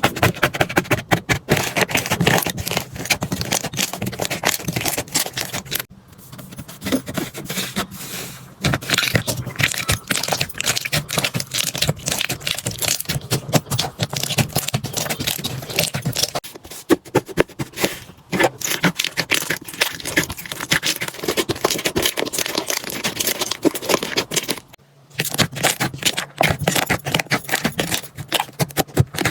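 Hands squishing, poking and pressing slime: a dense run of sticky clicking and crackling, broken by a few short lulls.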